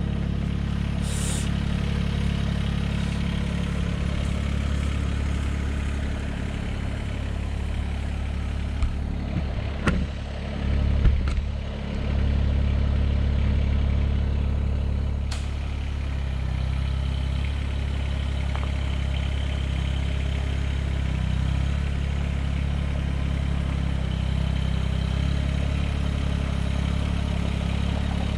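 Mahindra eMax 20S HST compact tractor's diesel engine running steadily, with a few sharp metallic knocks about ten and eleven seconds in.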